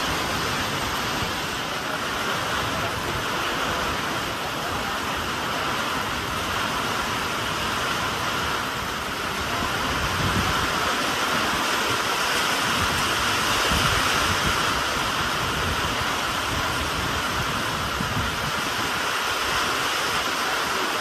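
Heavy monsoon rain pouring down, a dense, steady hiss of rain on the road and wet surfaces.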